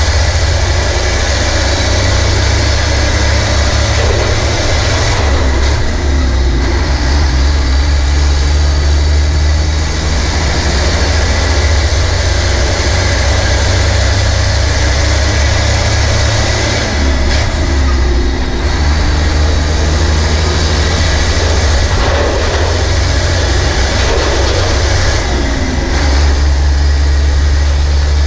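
The Nissan PF6TB 12.5-litre turbocharged intercooled diesel of a Nissan Diesel KG48U truck crane running under way, a loud steady low engine note whose depth drops and comes back a few times.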